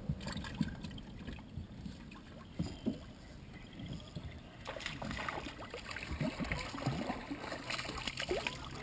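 Small fishing boat on the water: a steady low rumble of water and wind around the hull, with scattered small knocks and clicks of gear being handled. These get busier about halfway through, while a freshly hooked white bass is brought in.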